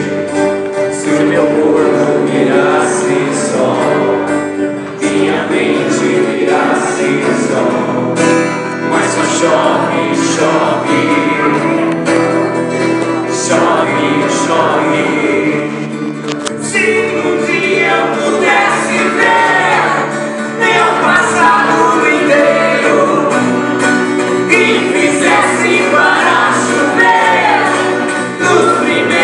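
Live band playing a song through a PA: acoustic and electric guitars accompanying a lead male voice, joined by a female singer.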